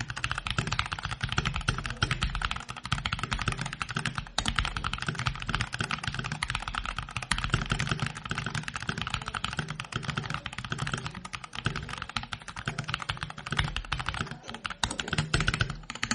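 Continuous fast typing on a Mountain Everest 60 compact mechanical keyboard fitted with pre-lubricated linear switches: many keystrokes a second, without a break.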